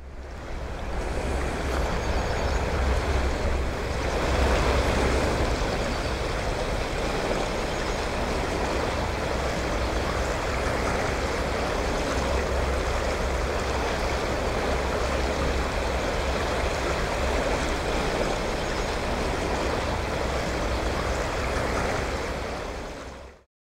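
Steady rush of fast-flowing river water with a low rumble underneath. It fades in at the start and cuts off shortly before the end.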